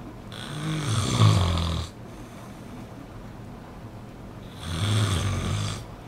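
A person snoring: two long snores about four seconds apart, each lasting about a second and a half, with a low rattling rumble under a breathy hiss.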